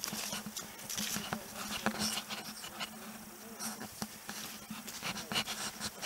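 Irregular rustling and crackling of footsteps and brushing through dry scrub and undergrowth.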